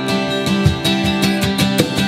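Live acoustic instrumental: a trumpet holding melody notes over strummed acoustic guitar chords and a cajon keeping a steady beat.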